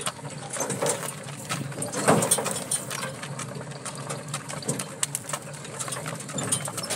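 Horse-drawn cart under way on a stony dirt track: the horse's hooves striking the ground while the cart's wheels, shafts and harness rattle and creak in a stream of irregular knocks and clicks. One louder thump comes about two seconds in.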